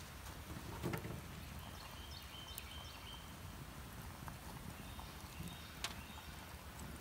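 Wood fire crackling in a perforated metal hobo stove, with a few sharp pops, the loudest about a second in.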